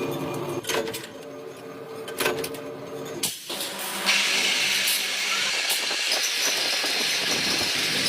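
Factory machinery running with a steady hum and scattered clicks, which stops about three seconds in; about four seconds in a steady hiss starts and keeps going.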